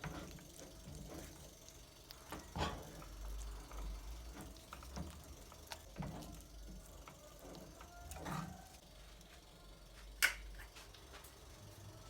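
Kitchen preparation sounds: scattered light clicks and knocks, the sharpest about ten seconds in, over a faint low hum.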